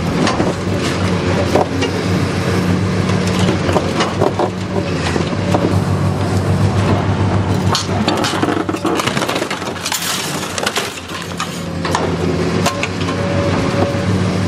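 Excavator-mounted car dismantling machine at work: its diesel engine runs with a steady hum while the hydraulic shear crushes and tears a car body, with metal crunching, scraping and clinking and sharp cracks throughout. About two-thirds through, the engine hum drops back under a louder rush of tearing noise.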